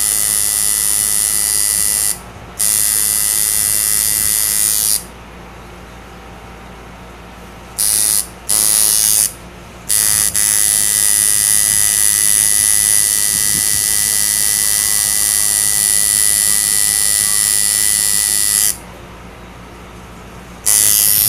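Coil tattoo machine buzzing as it works, stopping and starting several times: long steady runs broken by pauses of a second or two and a couple of short bursts.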